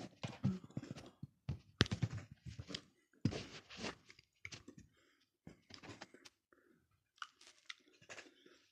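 Close-up mouth sounds from someone who has just swallowed a spoonful of Tabasco hot sauce: irregular smacking and clicking of lips and tongue, with short noisy bursts, some rustling of rubbing hands and clothing among them.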